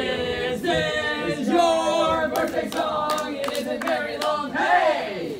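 Several men's voices singing together in drawn-out, wavering notes, with one voice sliding down in pitch near the end.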